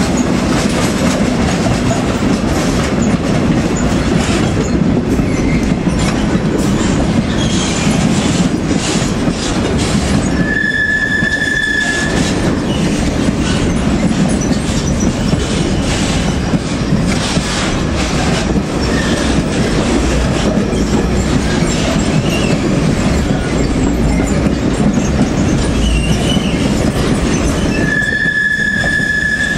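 Freight train of tank wagons and sliding-wall wagons rolling past close by, a steady loud rumble and clatter of wagon wheels over the track. A high, steady squeal cuts in briefly twice, about a third of the way through and again near the end.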